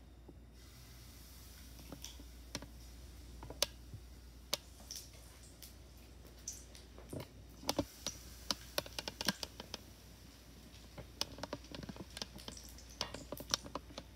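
Conch fritter batter frying in hot oil in a pan: a faint sizzle that sets in about half a second in, with many irregular sharp crackles and pops, thickest in the second half.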